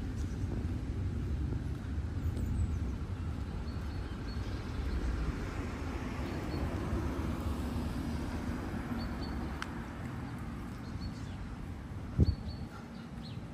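Outdoor ambience with a low steady rumble. A vehicle passes at a distance, its noise swelling and fading over several seconds. There are faint bird chirps, a click, and a single thump near the end.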